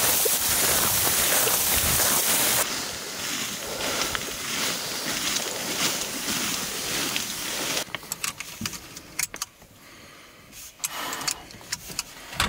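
Wind rushing on the microphone over a running vehicle, hissing loudest in the first few seconds. After about eight seconds it drops to a quieter stretch with scattered sharp clicks and knocks.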